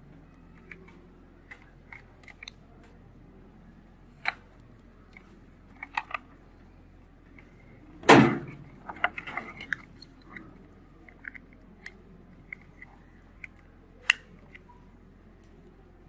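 Scattered plastic clicks and rattles as wire connectors are pried loose and unplugged from a washing machine's line filter board, with one loud sharp snap about halfway through followed by a quick run of smaller clicks.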